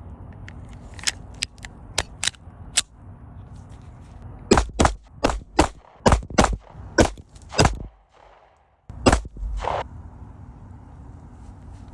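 A Staccato 2011-pattern pistol fired in a quick string of about nine shots, starting about four and a half seconds in, with one more shot after a short pause. A few fainter sharp clicks come before the string.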